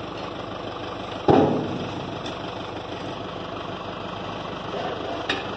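Dump truck's diesel engine idling steadily, with a loud, sudden clatter about a second in, as from a rake or shovel striking the asphalt.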